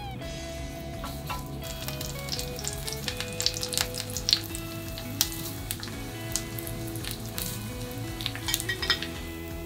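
Starch-coated eggplant slices sizzling in shallow oil in a frying pan as more slices are laid in, with many sharp crackles and pops of spattering oil, busiest from the middle to near the end.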